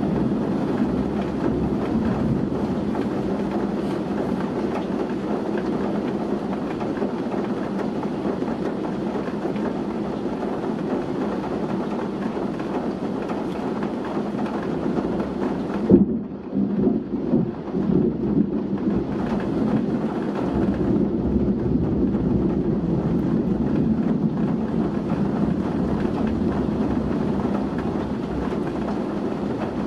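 Heavy rain pouring down in a strong wind, a steady loud rushing. About halfway through there is a sharp crack, then a few seconds of uneven rumbling before the steady downpour settles back in.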